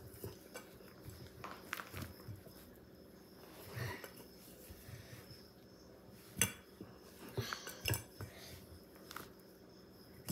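Faint, scattered knocks and clinks of kitchen utensils and a cutting board on a counter while dough is handled. One sharper knock comes a little past the middle.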